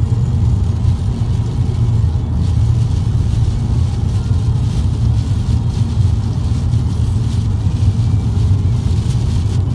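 Car cabin road noise while driving at speed on a wet motorway: a steady low rumble of tyres and engine with a fainter hiss above it.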